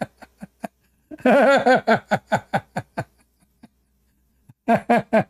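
A man laughing in two runs of quick, rhythmic 'ha' pulses: the first starts about a second in and lasts about two seconds, and the second comes near the end.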